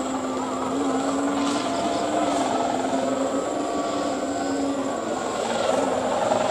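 Kite sendaren (bow hummers) droning in the wind: a steady drone made of several held pitches that waver slightly.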